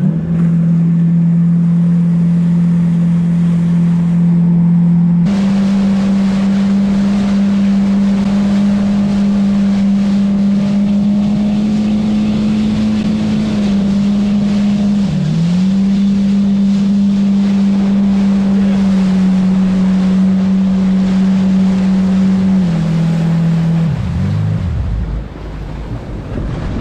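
Personal watercraft (jet ski) engine running under way at speed, a steady note that steps up about five seconds in, dips briefly in the middle, then drops and winds down near the end, over rushing wind and water.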